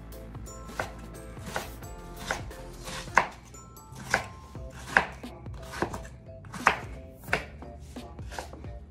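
Kitchen knife chopping raw peeled potatoes into cubes on a wooden cutting board: about ten sharp knocks of the blade through the potato onto the board, a little more than one a second.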